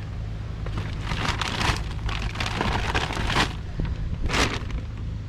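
Rustling and crackling as items are handled, in irregular clusters with a louder rustle about four seconds in, over a steady low hum.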